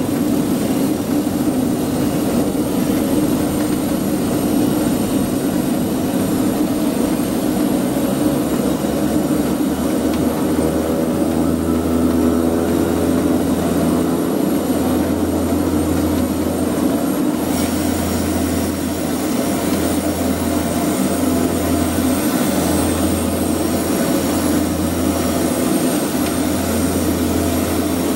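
LET L-410 turboprop's Walter M601E engine and propeller running steadily, heard from inside the cabin: a steady drone with a high turbine whine above it. A deeper rumble joins about ten seconds in and comes and goes.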